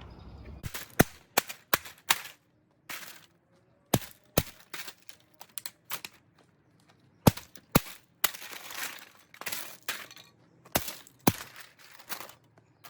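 A cheap robot vacuum cleaner's plastic housing being broken apart: about twenty sharp cracks and snaps at irregular intervals, with a few rattling scrapes in between.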